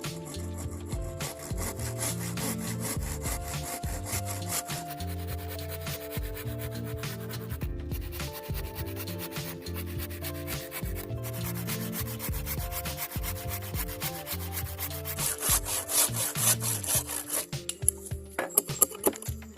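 Wood being sanded by hand in fast repeated strokes, shaping a wooden slingshot, over background music. Near the end the strokes get louder and more spaced out.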